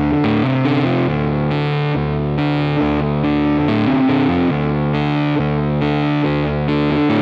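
Background music: a distorted electric guitar holding chords that change every second or so.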